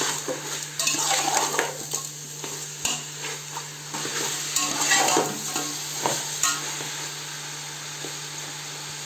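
A metal spoon stirring and scraping chicken pieces frying in an aluminium pot, in irregular strokes that grow fewer about seven seconds in.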